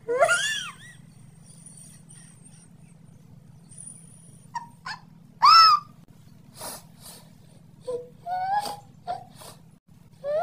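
A domestic cat meowing: a loud meow that rises and falls in pitch at the start and another about halfway through, with several short chirping calls in between.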